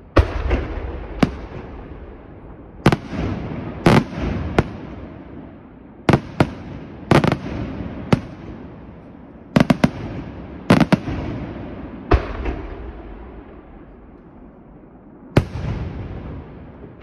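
Aerial firework shells bursting overhead in a display: a series of sharp bangs at irregular intervals, each trailing off in a long fading rumble. A quick burst of several bangs comes near the middle, then a quieter stretch before one more bang near the end.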